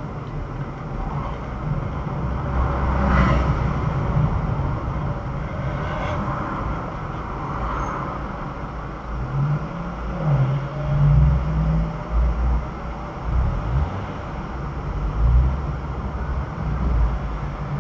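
Car engine and tyre noise heard from inside the cabin through a dashcam: a steady low rumble that swells a few times as the car drives in traffic.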